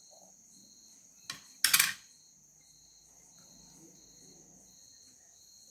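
Crickets chirping steadily, a high continuous trill with a slower pulsing chirp beneath it. About a second and a half in, a small click is followed by a short, louder noise of about half a second.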